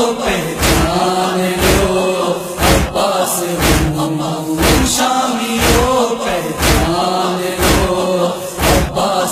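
A backing vocal chorus chanting, with no lyrics from the lead reciter, over steady rhythmic thumps about once a second in the manner of matam chest-beating that keeps time for a noha.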